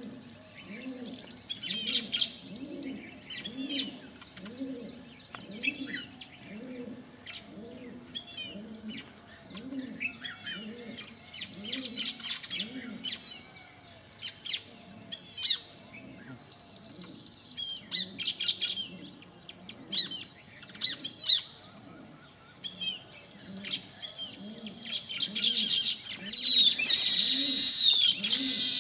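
Wild birds chirping and calling, over a low note that repeats a little more than once a second and a steady high hiss. Near the end comes a burst of loud, shrill calls that slide downward.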